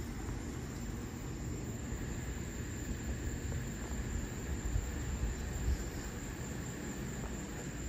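Evening outdoor ambience: a steady high-pitched drone of insects, over a low rumble that swells a few times around the middle.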